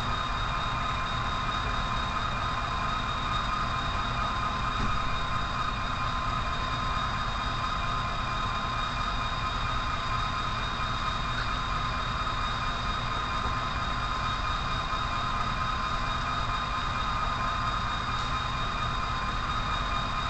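HO scale model diesel locomotive running slowly, a steady low rumble with a high, even whine over it.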